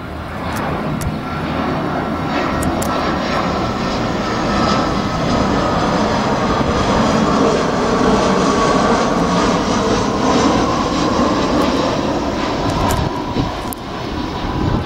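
An arriving airliner's engines passing close by, the roar swelling to its loudest about two-thirds of the way through and easing off near the end, with a whine that drifts slightly lower in pitch.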